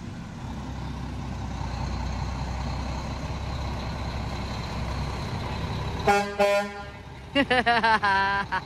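Heavy flatbed boom truck's engine running steadily as it drives slowly in, then its horn sounding about six seconds in: one longer blast, followed by several short toots.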